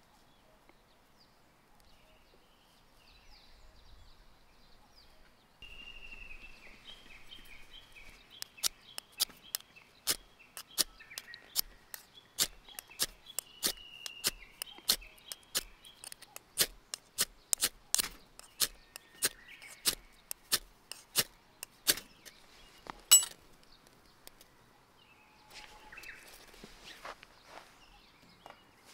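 Ferrocerium fire-starter rod scraped with a striker, short sharp strikes about twice a second for some fourteen seconds, with one last, loudest strike. The sparks are landing on hemp-fibre tinder to light a fire.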